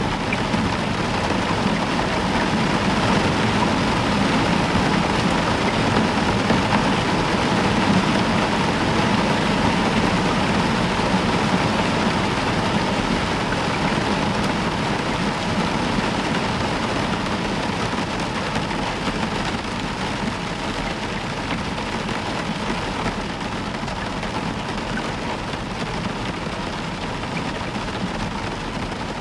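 Heavy rain falling steadily. A low rumble of distant thunder swells in the first half and fades away.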